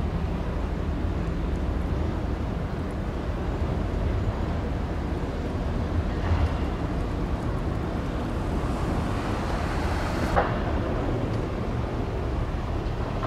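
Steady low drone of the passing multipurpose crane vessel CP-5001's engines and propellers, with the hiss of its churning wake. A short sharp knock about ten seconds in.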